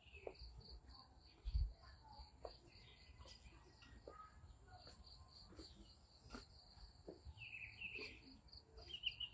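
Faint outdoor ambience: an insect chirping steadily at a high pitch, with a few soft bird chirps near the end and one low thump about a second and a half in.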